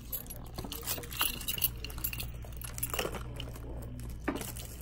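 Hands working open sealed cardboard trading-card boxes, with short scratchy crinkles of plastic wrap and cardboard and the clink of a bunch of keys used to cut the seal.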